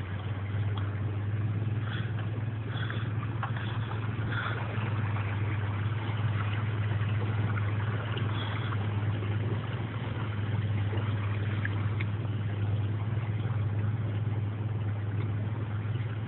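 Vehicle engine running with a steady low drone, heard from inside the cab while driving slowly through floodwater, with an even hiss of tyres moving through the water.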